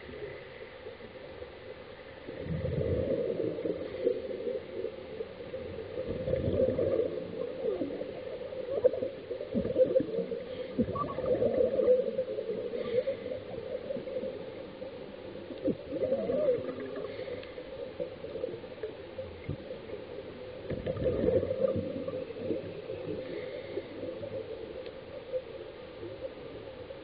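Scuba diver's exhaled bubbles from the regulator, recorded underwater: bursts of bubbling rumble and crackle come every few seconds, with a steady underwater hiss in between.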